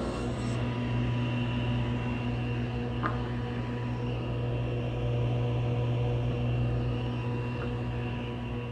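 Table saw running steadily with its blade spinning, a constant machine hum.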